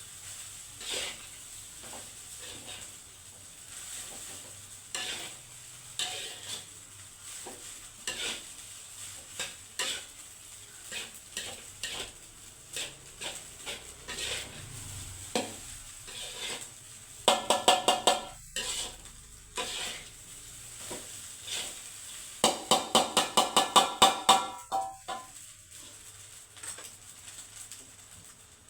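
A spatula stirring and scraping fried rice in a pan, with a light sizzle. Twice, a quick run of ringing taps comes as the spatula knocks against the pan, once a little past halfway and again near the end; these taps are the loudest sounds.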